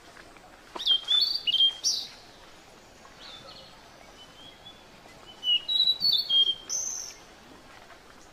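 Two bursts of short, high-pitched chirping calls, the first about a second in and the second just past halfway, each a quick run of squeaky notes with a few upward flicks.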